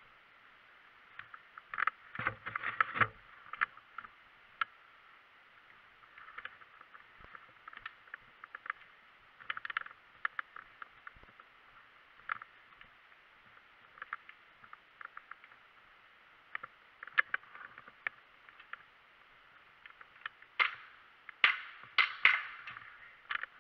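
Scattered clicks and knocks from a player moving with gear through an indoor airsoft game, with a denser patch about two seconds in and a cluster of louder, sharper snaps near the end.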